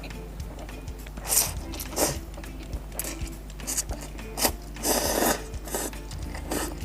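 Close-up eating sounds: chewing small crunchy snacks, with irregular short crackling bursts and clicks.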